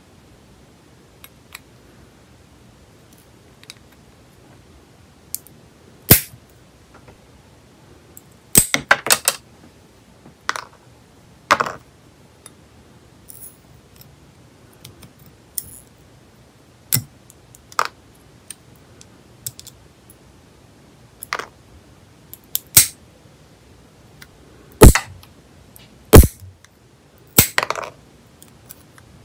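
Steel nail clippers snapping through long, hard gel nail extensions to cut the old set off: a series of sharp cracks at irregular intervals, with fainter clicks of the clippers between them.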